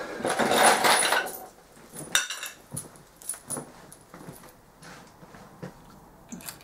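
Clutch springs and bolts clinking and rattling as a hand rummages them out of a parts tray, with a sharp metallic clink about two seconds in and scattered light clicks after.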